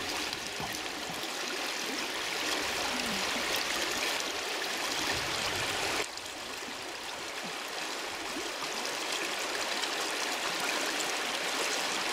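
Fast-flowing river current running over stones: a steady hiss of water, dipping slightly in level about six seconds in.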